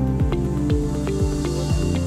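Upbeat corporate background music with a deep kick drum about twice a second under a run of short, pitched notes.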